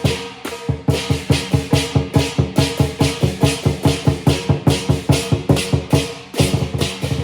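Chinese lion dance percussion: a drum beaten fast and steadily, about five strikes a second, with crashing cymbals and a gong ringing over the beat.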